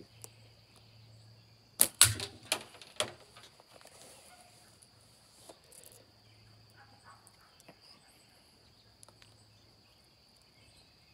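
A slingshot shot with steel ball ammo: two sharp snaps close together about two seconds in, the bands releasing and the ball striking at the catch box, followed by a few lighter knocks over the next second.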